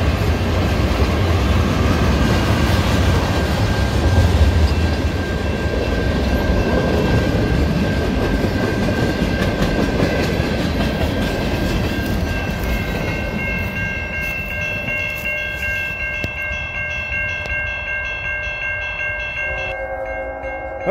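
Freight cars of a CN freight train rumbling past a grade crossing, wheels clicking over the rail joints. The rumble eases off in the second half while the crossing warning bell rings steadily.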